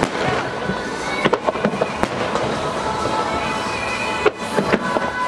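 Aerial firework shells bursting in quick succession, a run of sharp bangs with a bigger bang a little over four seconds in. Music plays alongside.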